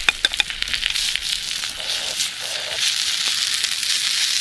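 Yakisoba noodles sizzling as they are stir-fried in a pan over a small wood fire, a steady hiss with a few sharp clicks about half a second in.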